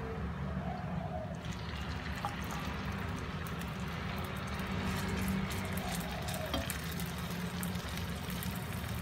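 Raw chicken pieces starting to fry in a little oil in a nonstick pan: a steady sizzle that builds from about a second and a half in, with scattered pops and clicks. A steady low hum runs underneath.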